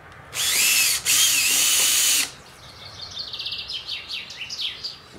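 Cordless drill boring a 4 mm pilot hole into a hardwood aquarium root in two short bursts, the motor's whine rising and falling with each pull of the trigger; the pilot hole keeps the wood from splitting when the screw goes in. Small birds chirp and trill after the drilling stops.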